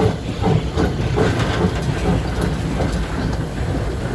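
Inyo, an 1875 Baldwin 4-4-0 steam locomotive, heard from inside its cab while running slowly: a steady rumble and hiss with a rhythmic beat of about three strokes a second that fades after about two seconds.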